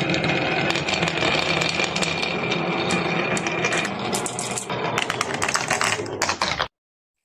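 Marbles clicking and clattering down a marble run over the steady whir of a small toy motor, with a rapid run of clicks near the end before the sound cuts off abruptly.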